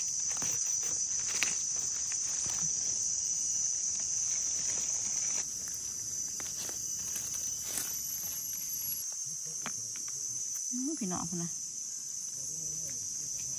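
Steady high-pitched drone of insects, with scattered small clicks and crackles of dry leaves and twigs being handled as mushrooms are dug out of the leaf litter.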